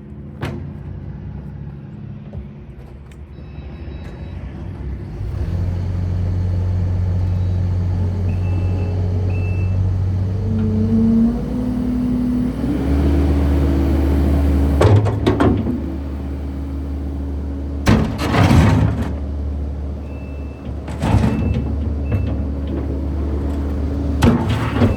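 Kubota SVL95-2s compact track loader's diesel engine running, throttled up about five seconds in and shifting pitch again a little later as the machine works. Several short, loud bursts of hiss and clatter come in the second half.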